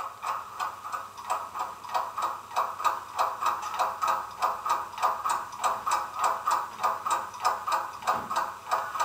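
Sound-decoder recording of a British Rail class 08 shunter's English Electric six-cylinder diesel idling with an even knocking beat, about three a second. It plays through the small speaker of an OO-gauge model locomotive.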